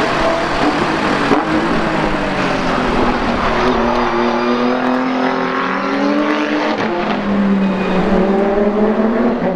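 Tuned Nissan GT-R twin-turbo V6 running hard on track, its engine note drifting slowly lower through the second half over a dense rush of noise.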